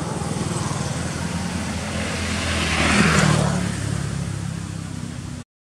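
A motor vehicle's engine running and passing close by, growing loudest about three seconds in and fading a little before the sound cuts off abruptly.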